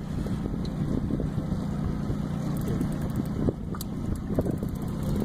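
Wind rumbling steadily on the microphone over choppy open water, with a few short clicks.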